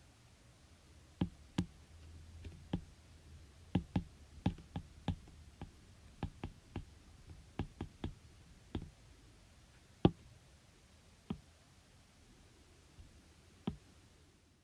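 Irregular sharp clicks and taps, about twenty of them, scattered unevenly with the loudest about ten seconds in, over a faint low hum.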